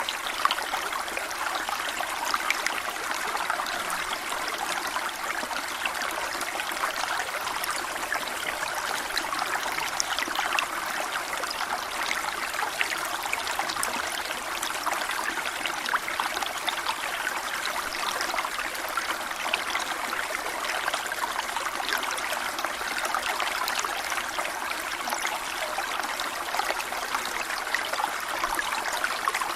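Waterfall water splashing and gurgling steadily, with a light trickling, splashy texture.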